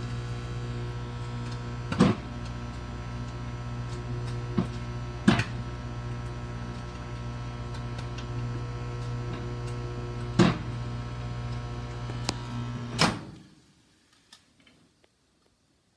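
Hamilton Beach microwave oven running with a steady hum, with four or five sharp pops or clicks from inside, which the cook puts down to the bacon moving around. The hum stops suddenly with a click about thirteen seconds in.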